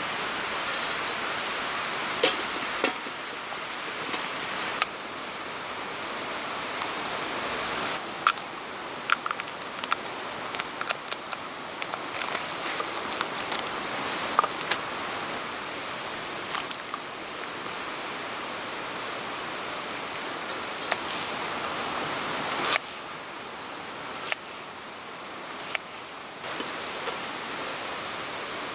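Steady rushing noise of rain and running water, with scattered sharp clicks and clinks. The level steps up or down abruptly a few times.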